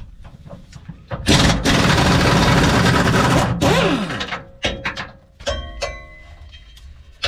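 Pneumatic impact wrench with a 15 mm socket on a long extension hammering for about two seconds as it breaks loose a truck-bed bolt held with blue Loctite. A shorter burst follows that winds down. Near the end come a few metal clinks with ringing.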